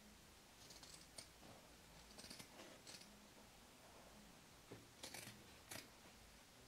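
Fabric scissors cutting through layered fabric with a fibrous padding layer: faint, crisp snips in short groups, about five times.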